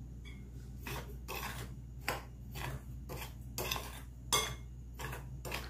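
Metal spoon stirring dry flour, sugar and cinnamon in a glass bowl: soft, irregular scraping strokes of the spoon against the glass, about two a second.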